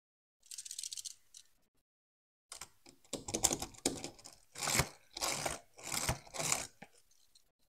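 Small die-cast toy car rolled back and forth on the cardboard bottom of a box, its little wheels rumbling on the cardboard in six or seven quick strokes in the second half. Before that there is a brief light rustle as the car is handled.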